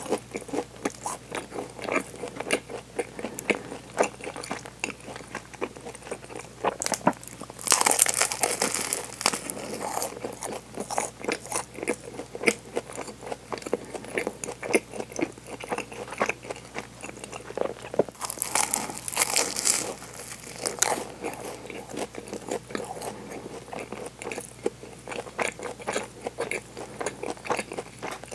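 Close-miked biting and chewing of a crusty chocolate ring bread, a constant patter of small crunchy clicks, with two louder crunchy stretches about eight seconds in and again near nineteen seconds.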